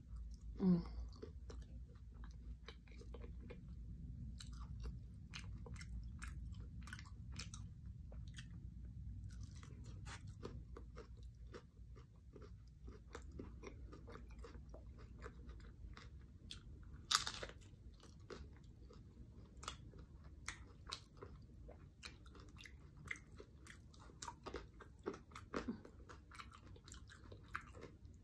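A bite into a chicken tlayuda, then steady chewing of its crisp toasted tortilla, with many small crunches; one louder crunch comes about 17 seconds in.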